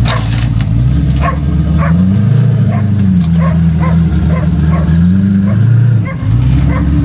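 A dog barking repeatedly, about two barks a second, over a vehicle engine running with its note rising about two seconds in and falling again near the end.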